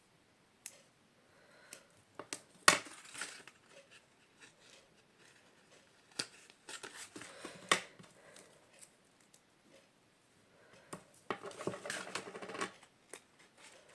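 Paper and cardstock being handled on a craft table: scattered light taps and clicks, a sharper click about three seconds in, and a stretch of paper rustling near the end.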